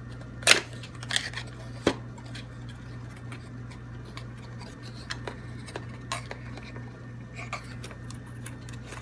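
Hands opening a cardboard box flap and working a tightly packed plastic battery charger inside it: a few sharp clicks and taps in the first two seconds, the loudest about half a second in, then faint scattered ticks and rubbing.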